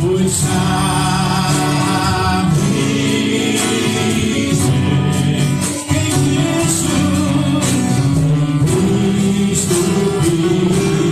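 Gospel worship song: held, wavering sung notes over a steady instrumental backing, with a brief break about six seconds in.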